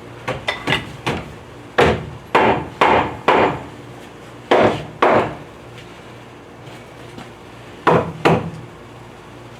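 Hammer driving nails into wood wall framing: sharp blows in short runs about half a second apart, a few lighter taps first, then groups of four, two and two strikes, over a steady low hum.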